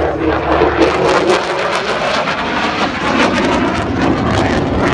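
Military jet flying a display pass, its engine noise a loud, steady rush with rapid crackling through most of it.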